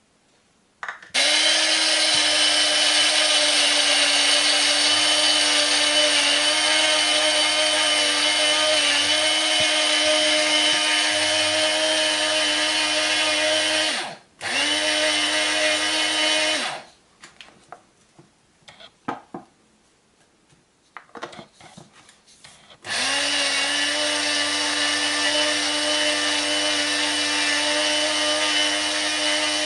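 Small electric grinder grinding rolled oats into flour, its motor running steadily in three runs: a long one of about thirteen seconds, a short one of about two seconds after a brief stop, and one of about seven seconds near the end. Light knocks from handling the grinder fall in the pause between the runs.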